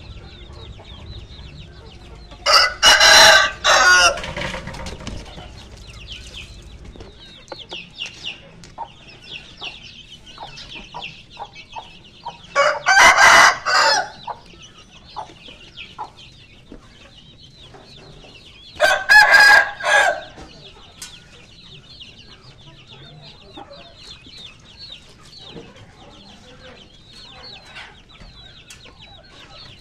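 Roosters crowing three times, each crow lasting about a second and a half, with faint high chirping in between.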